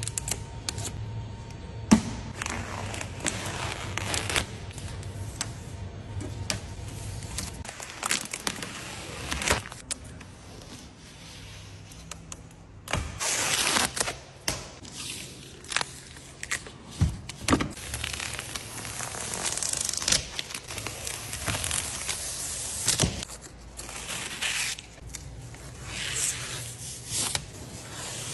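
Protective plastic film and paper being peeled off a new car's badge and door trim, crinkling, tearing and scraping in irregular bursts, with a few sharp clicks.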